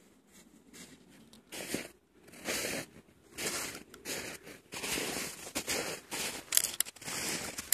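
Snow crunching and swishing in a run of short bursts, about one every half second to a second, starting about two seconds in and getting louder toward the end.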